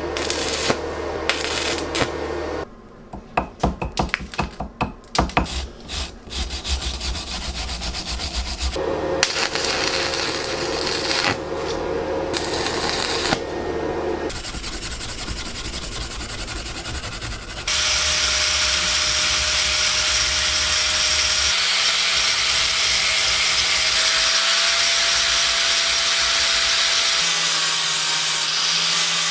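Stick welding on a steel hammer head: the arc crackles and hisses, going out and restarting several times with a burst of short sputtering strikes. About two-thirds through, an angle grinder with a flap disc starts grinding the weld down, a louder, steady running sound with a held tone.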